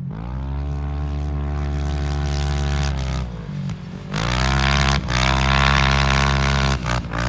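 An off-road vehicle's engine revving hard under full throttle, its pitch climbing, briefly dropping about three and a half seconds in and again near the end, then climbing once more.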